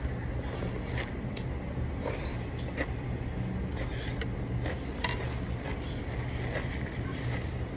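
Eating sounds: small clicks and scrapes of utensils and mouth noises, scattered irregularly over a steady low hum.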